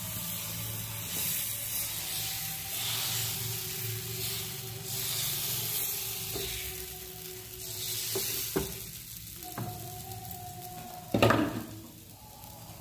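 Thin rice-batter dosa (chakuli) sizzling on a hot flat pan as a ladle spreads the batter in circles, its strokes sweeping and scraping over the pan. A few knocks follow near the end, the loudest a sharp clatter of the ladle against the pan, and then the batter goes on sizzling more quietly.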